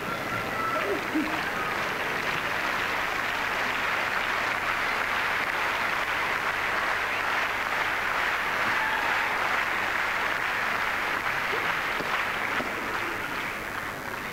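A large spectator crowd applauding, a steady clapping that dies away near the end.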